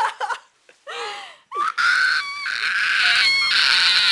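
People shrieking in short, wavering high-pitched bursts with brief gaps. About two seconds in, a steady, harsh hissing screech takes over.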